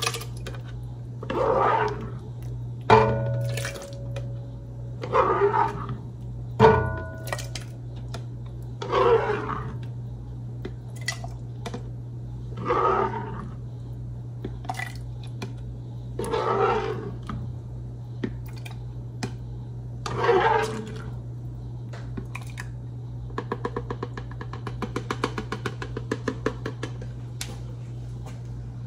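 Thick blended sauce being poured and scraped from a plastic blender cup into a large metal pan, with two sharp clanks against the pan about 3 and 7 seconds in. A steady low hum runs underneath.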